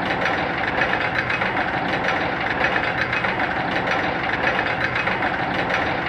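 Roller coaster anti-rollback device clacking as a train climbs the lift hill: a rapid, irregular run of mechanical clicks over a steady rattle.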